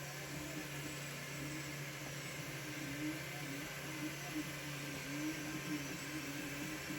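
A 3D printer running on a Duet3D controller, printing. Its stepper motors give short whining tones that change pitch every fraction of a second as the print head moves, over a steady hum and hiss.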